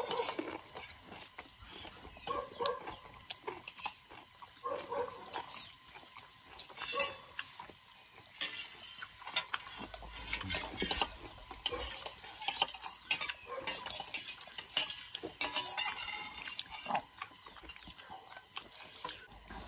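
Spoon or fork clinking and scraping against a plate while eating, in irregular small clicks throughout.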